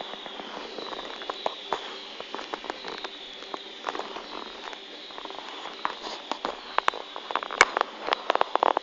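Fireworks crackling: scattered sharp pops that thicken into a rapid, louder crackle over the last few seconds.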